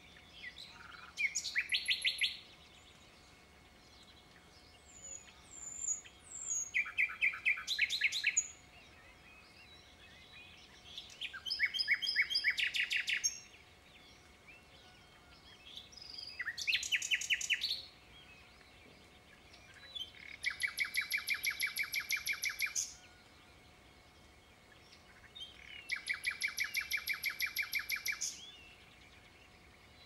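Common nightingale singing: six phrases of fast repeated notes, each a second or two long, separated by pauses of about three seconds. The last two phrases are longer, even runs of rapid notes.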